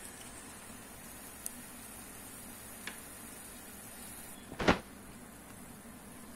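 Saucepan of water with tomato and onion at a rolling boil on a gas stove, bubbling steadily, with a couple of light clicks and one louder knock about four and a half seconds in.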